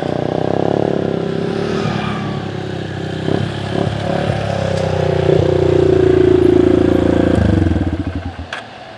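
Trail motorcycle with a loud racing exhaust riding up and slowing. The engine note rises and falls with the throttle and is loudest about six seconds in. It then drops to a low, uneven putter and dies away near the end.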